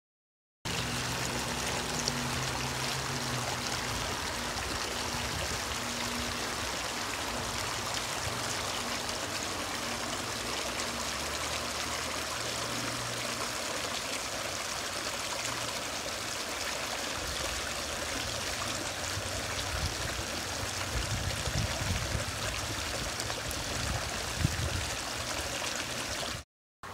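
Shallow woodland brook running over a stony bed: a steady rush of water that starts about half a second in and stops just before the end.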